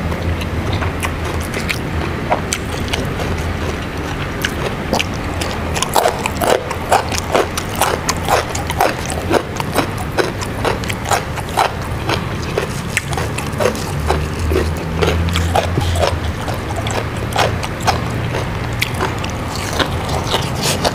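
Close-up crunching and chewing of raw lalapan vegetables such as young jengkol, in sharp crunchy strokes about one to two a second, heavier from about six seconds in. A steady low hum runs underneath.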